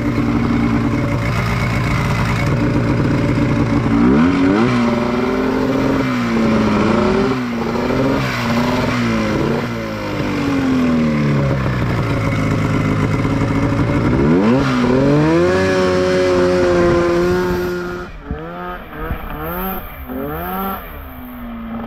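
Honda Pilot buggy with a Ski-Doo 670 two-stroke snowmobile engine swap revving up and down as it is driven through mud. It climbs sharply about four seconds in, swings up and down several times, climbs again to a high rev held for a few seconds, then drops off and gives a few short blips near the end. The owner says this engine bogs off the line until it gets up to its power band.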